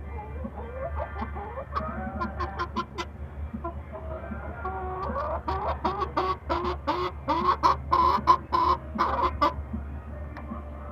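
Chicken clucking: a run of short calls, growing louder and faster in the middle and stopping a little before the end.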